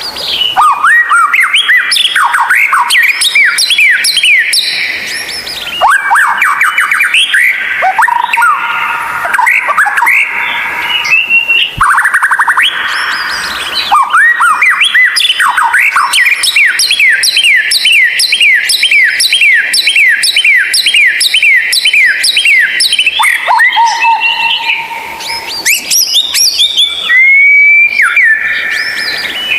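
White-rumped shama (murai batu) singing loudly and continuously in a varied song: long runs of quick, repeated sweeping notes broken by buzzy trills, with a few steady held whistles near the end.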